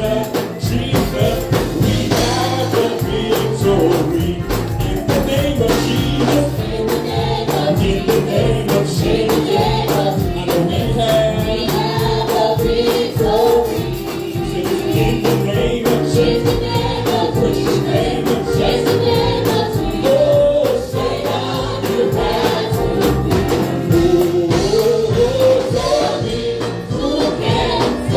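Live gospel praise music: a choir singing over a band, with a bass line and drums and tambourine keeping a steady beat.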